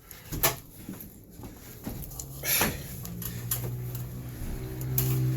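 Scattered knocks and footsteps on wooden attic floor and ladder, with a steady low hum coming in about three seconds in.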